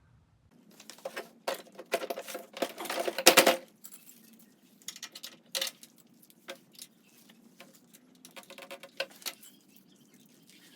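Small hard objects being handled: irregular clinks, clicks and rattles, densest and loudest about three seconds in, then sparser.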